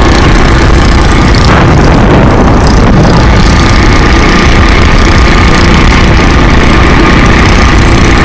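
Motorcycle engine running steadily while riding, under heavy wind rush and buffeting on the microphone.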